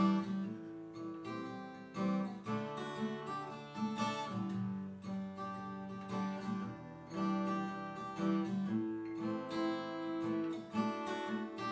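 Instrumental break in a song: acoustic guitar strumming chords.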